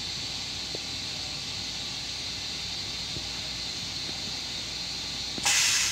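A steady hiss, then near the end a sudden loud rush of air and water: the M7 railcar toilet flushing.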